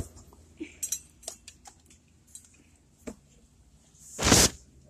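Handling noise from a moving phone: a sharp knock, a few light clicks and clinks, then a brief loud rustle about four seconds in.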